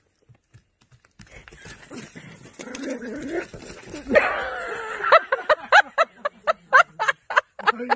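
A dog whining and yipping, starting after a second of quiet and a rustling noise; from about four seconds in the cries grow loud and break into quick, repeated short yips.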